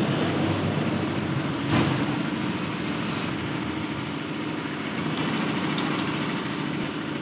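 Steady drone of an idling engine, with a single knock about two seconds in.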